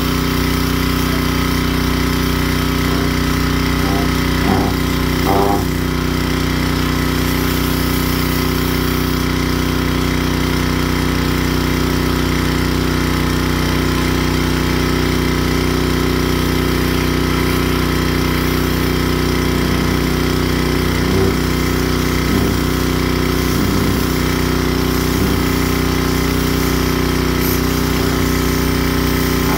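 Gas-engine pressure washer running at a steady speed, with a few light knocks about five seconds in.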